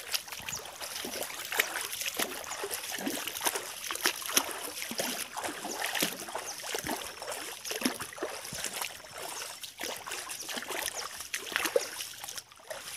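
Irregular crackling and rustling of leaves and twigs, with footsteps, as people push on foot through dense ferns and undergrowth.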